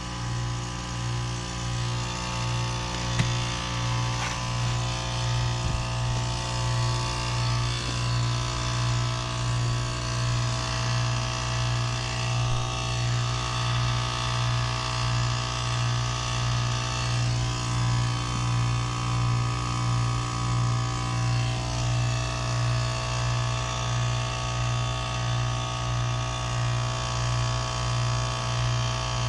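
2012 Lennox Merit heat pump outdoor unit running through its defrost cycle: a steady, loud low compressor hum that pulses in an even rhythm, with higher steady tones above it.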